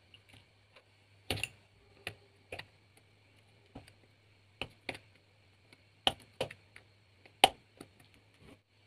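Hobby knife trimming thin PVC pieces of a small scale-model truck bed on a cutting mat: irregular sharp clicks and scrapes as the blade cuts and taps, the loudest a little before the end, over a faint steady hum.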